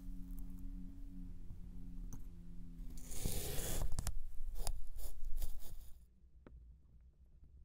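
Metal tines of a pick cutting into and through kinetic sand in a glass, a crisp crunching scrape. It grows loud about three seconds in, with a few sharp ticks, and stops abruptly about six seconds in. A faint low hum is there at the start.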